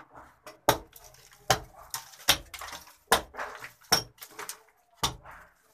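Hammer blows, six sharp knocks at a steady pace of about one every 0.8 seconds.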